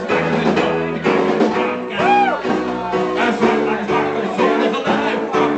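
Live band music with guitar chords played in a steady rhythm. About two seconds in, a short note rises and falls in pitch.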